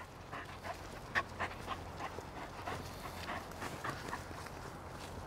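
Dog panting fast as it runs up close, about three or four quick breaths a second, stopping about four seconds in.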